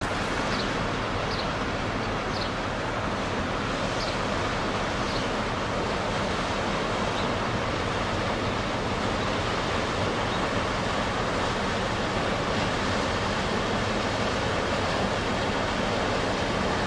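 Motor cargo barge passing close by: the steady rush and splash of its bow wave and wash along the hull, over a low hum.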